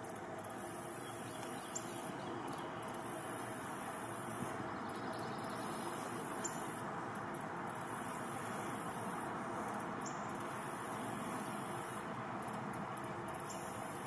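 Insects trilling, a very high trill that comes and goes in stretches of a second or two over a steady hiss, with a few brief high chirps.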